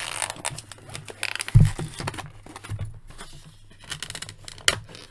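Cardboard toy packaging and its plastic tray being handled: scattered rustles, scrapes and small clicks, with one dull thump about one and a half seconds in.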